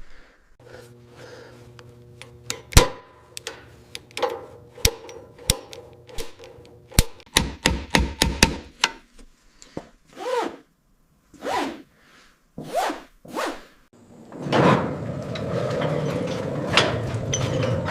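Tools and metal parts being handled in a workshop: a string of sharp knocks and clicks over a steady hum at first, then a rougher, denser noise in the last few seconds.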